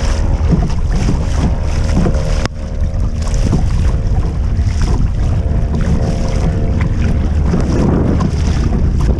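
Wind buffeting the microphone over choppy sea water slapping and splashing against a kayak's bow as it moves through the waves.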